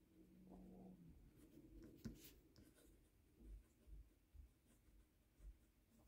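Faint scratching of a fountain pen nib writing on matte photo paper, with a soft click about two seconds in.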